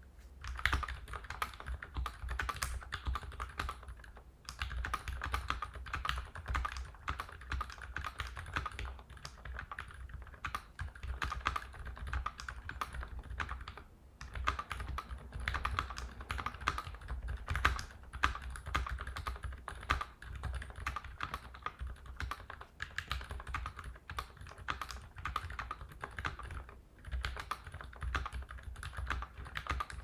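Steady, fast typing on a custom mechanical keyboard fitted with lubed and filmed Healios V2 linear switches, lubed Durock stabilizers and GMK keycaps. There are brief pauses about 4, 14 and 27 seconds in.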